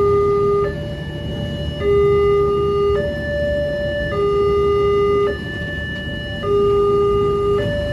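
Railway level crossing's electronic warning siren sounding, alternating between two pitches about once a second, over the low rumble of passenger coaches passing over the crossing.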